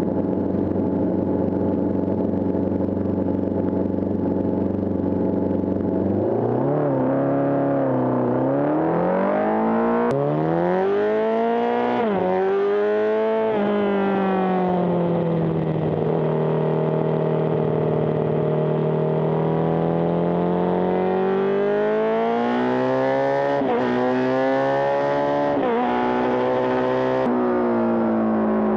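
Honda CB750 Four racing motorcycle's air-cooled inline-four engine at racing revs. It holds one steady pitch for about six seconds, then revs up hard with quick drops in pitch at each gear change. Midway it eases off in a long slow fall and picks up again, then runs up through the gears once more.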